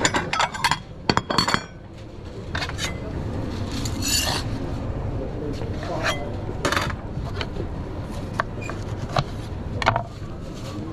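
Metal utensils and dishes clinking and knocking in irregular strokes as food is made up and served, over a steady low rumble.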